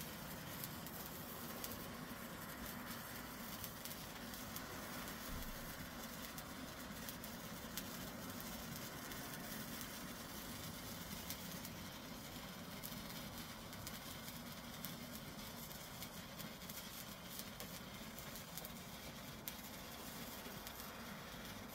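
Hand-held Weco Zauberlichter bengal stick burning, giving a steady hiss with many fine crackles.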